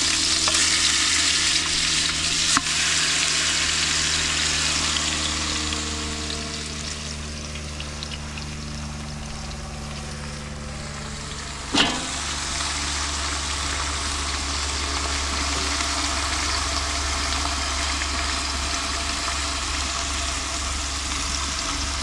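Pieces of hare meat frying in a hot pan. The sizzling starts suddenly, is loudest at first, then settles into a steadier frying. There is a sharp knock a little before the middle.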